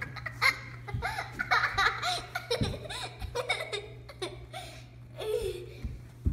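A young girl laughing and giggling in short, repeated bursts.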